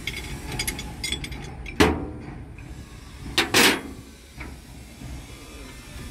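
Metal parts and tools being handled on an excavator's steel body panel: a few light clinks, a sharp knock about two seconds in, then two louder metallic clanks close together a little past halfway.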